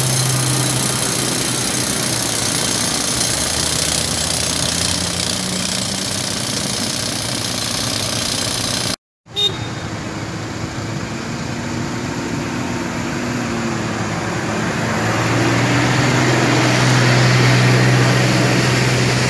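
Steady hum of a running engine over a broad noisy rush, the site's own recorded sound. It drops out for a moment about nine seconds in, then resumes with the same hum, which grows a little louder near the end.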